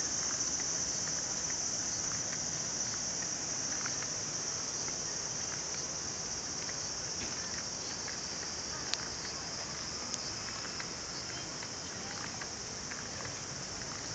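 Steady chorus of insects, a constant high-pitched drone with no break, with a couple of faint clicks about nine and ten seconds in.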